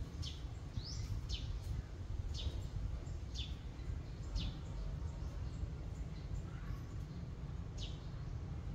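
A small bird chirping: short, high, downward-sweeping calls about once a second, then a pause of a few seconds and one more call near the end, over a steady low rumble.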